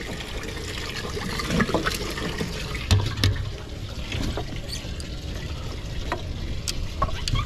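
Water running and trickling into a boat's live well, with a few sharp knocks, the loudest a low thump about three seconds in.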